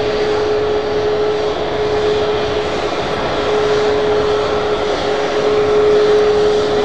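Jet engines of a taxiing Boeing 737 at low taxi thrust: a steady rushing noise with one constant whine held on a single pitch.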